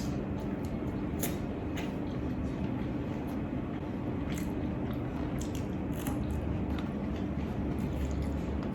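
A person chewing a bite of braised tofu close to the microphone: soft mouth sounds with scattered small clicks, over a steady low hum.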